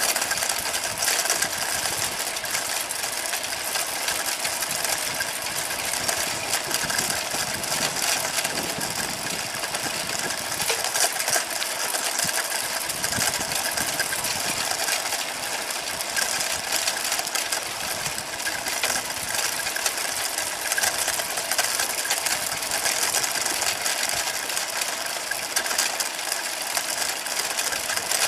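Steady rattling and rolling noise of a bicycle ride on asphalt: tyres running on the pavement and the bike's parts rattling in a dense run of fine clicks.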